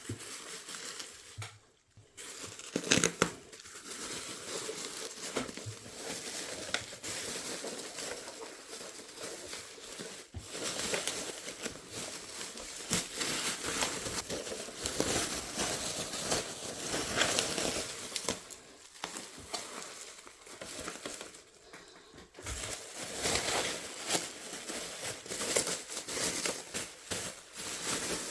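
Packing material being crumpled and torn by hand, a continuous crinkling and rustling with sharp crackles and one louder snap about three seconds in.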